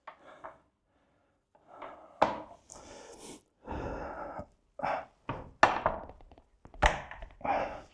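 Series of thumps and knocks as a polyethylene (HDPE) motorcycle skid plate is forced and shoved onto misaligned frame mounting stems.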